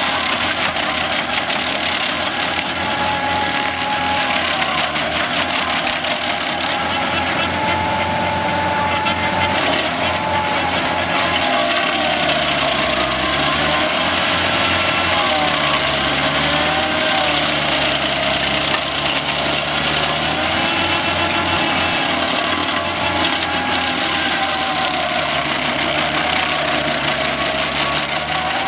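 PTO-driven stump grinder with a Revolution cutting wheel running and grinding into a tree stump: a steady mechanical drone over a grinding hiss. From about midway its pitch repeatedly sags and recovers as the wheel takes load in the wood.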